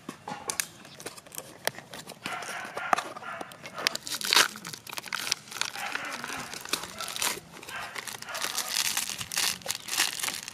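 Foil sachet being torn open and crinkled by hand: a run of sharp crackles and rustles, sparse at first and thicker from about two seconds in.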